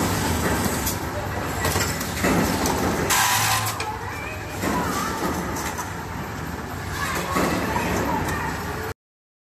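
Automatic paint roller frame assembling machine running: a steady hum with clacks from its pneumatic clamps and slides, and a loud hiss of air about three seconds in. The sound cuts off suddenly near the end.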